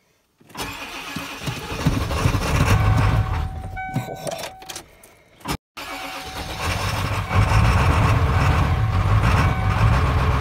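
1995 Ford F-250's 7.3 L Powerstroke V8 turbo-diesel cold-starting without its block heater in freezing weather: it cranks from about half a second in, runs roughly and fades out a little past five seconds, then cranks again and catches, settling into a steady idle from about seven seconds in.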